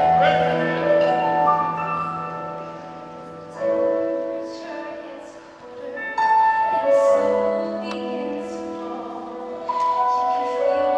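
A large mixed choir singing held chords in phrases, with female and male soloists singing on microphones in front. The sound drops away briefly about halfway through, then comes back in.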